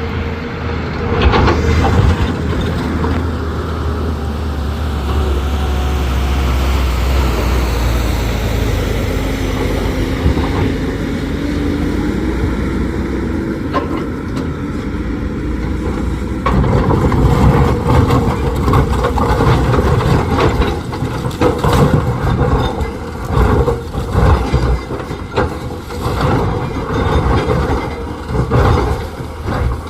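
Volvo hydraulic excavator's diesel engine running under load, with a slowly rising hydraulic whine. From about halfway, a dense run of sharp, irregular knocks and clatter of broken basalt rock joins the engine.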